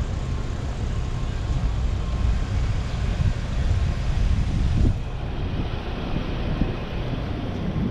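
Street noise of passing traffic with a steady low rumble.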